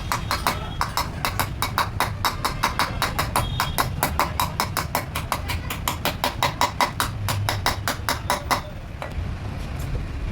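Rapid, even hammer blows on metal, about four or five a second, stopping about eight and a half seconds in.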